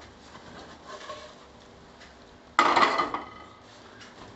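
Cookware being handled while an omelette is turned out of a nonstick frying pan onto a steel plate: quiet shuffling, then one loud metal clank with a brief ring about two and a half seconds in.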